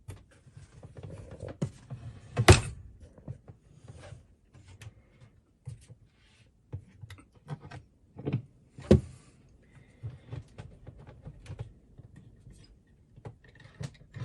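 Hands fitting a water filter canister into a cabinet: scattered knocks and rustling, with a loud knock about two and a half seconds in and two more near the middle.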